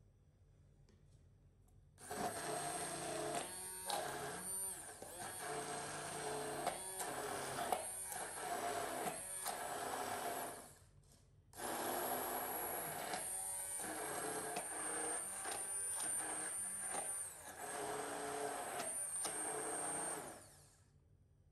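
Hand-held immersion blender running in a tall beaker of thick homemade condensed milk, in two runs of about nine seconds with a short stop between them. The motor gives a steady high whine, with brief dips as the blade works through the mixture.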